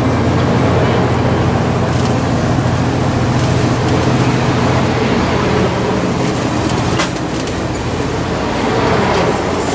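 Caltrain passenger train of Bombardier bilevel cars rolling past on the rails, a steady low drone with wheel and rail noise. A couple of sharp wheel clicks come through, about two seconds in and again about seven seconds in.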